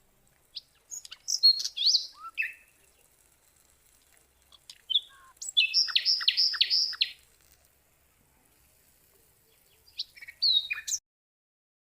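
Small birds chirping and whistling in short phrases, with a quick run of about five high notes around the middle; the sound cuts off abruptly near the end.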